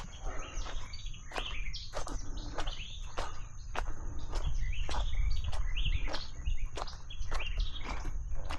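Footsteps at a steady walking pace, with small birds chirping repeatedly and a low rumble underneath.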